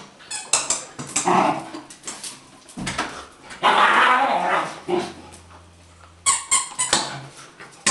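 Dogs vocalizing in play: a run of short, sharp yelps and barks, with a longer rough bark or growl a little before the middle.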